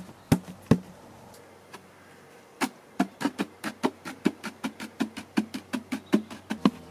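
Wooden board of a National beehive brood box knocking in its grooves as it is worked down into place by hand: two knocks just after the start, then a fast run of wooden knocks, about six a second, from a little past a third of the way in.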